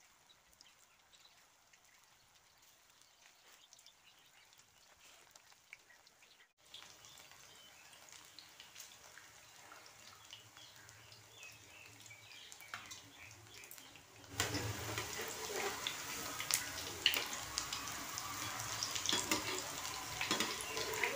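Onion pakoras deep-frying in hot oil in a kadai, a crackling sizzle. Faint at first, it turns clearly louder about two-thirds through, with scattered sharp ticks.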